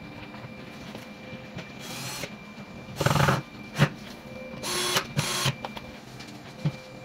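Cordless drill driving screws into an MDF dresser frame: the motor whirs in short bursts, a faint one about two seconds in, a loud one about three seconds in and two more close together about five seconds in. There are a couple of sharp knocks between the bursts.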